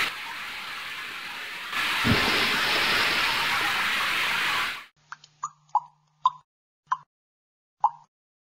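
Animation sound effects: a loud steady hiss with a single low thud about two seconds in, cut off sharply, then six short drip-like plops at irregular intervals.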